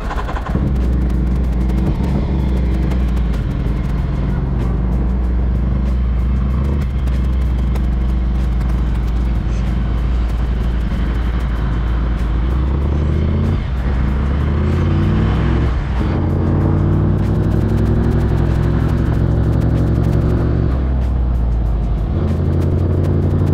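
Ducati Scrambler Icon's 803 cc air-cooled L-twin, fitted with an HP Corse Hydroform exhaust, pulling away and accelerating through the gears. Its note climbs, then drops back at each of several upshifts.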